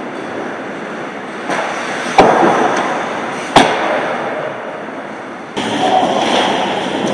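Ice hockey play in a rink: a steady scraping hiss of skates on ice with two sharp cracks of puck and stick impacts, about two and three and a half seconds in. About two-thirds through, the sound jumps abruptly to a louder, busier stretch of play.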